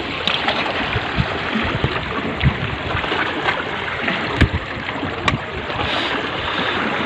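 Fast-flowing river water rushing, a steady noisy rush, with a couple of sharp knocks about halfway through.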